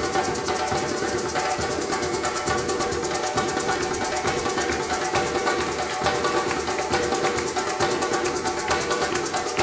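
A group of musicians playing improvised music: a dense, even texture of fast, quickly repeated notes over a few held pitches.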